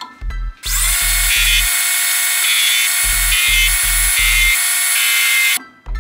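Metal lathe starting up about half a second in and running for about five seconds, a loud steady whine over a dense hiss, which then cuts off abruptly. Background music with a steady beat plays throughout.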